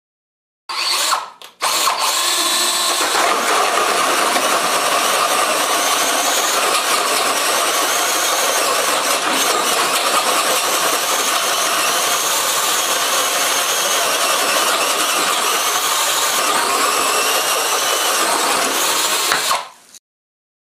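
DeWalt 18-volt cordless drill driving a hole cutter through sheet material: it starts, stops for a moment, then cuts steadily for about eighteen seconds before stopping.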